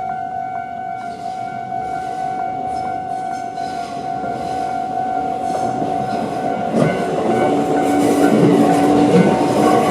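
Japanese level-crossing alarm ringing its standard electronic bell tone while a Tobu 8000-series electric train approaches and passes over the crossing. The rumble of the train grows over the first seconds and is loudest in the last few seconds, with wheels clacking over the rail joints.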